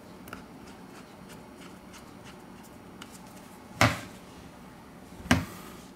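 A smartphone being handled and set down on a table: faint small ticks, then two short knocks about a second and a half apart.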